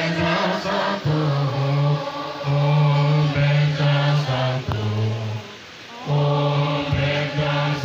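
Many voices chanting Tibetan Buddhist liturgy in unison on a low, held pitch, in long phrases, with a short break about five and a half seconds in.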